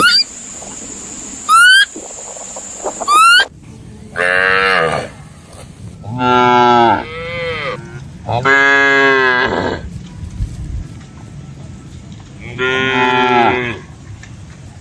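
Cow mooing: four long moos a second or two apart, the second with a shorter follow-on. Before them, three short rising whistle-like calls about every second and a half, ending abruptly.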